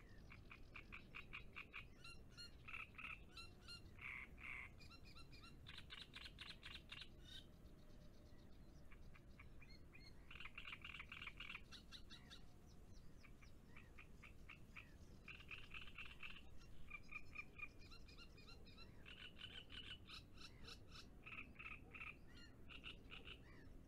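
Faint chorus of frogs calling. Each call is a rapid pulsed trill lasting about a second, and the calls follow one another with short gaps between them.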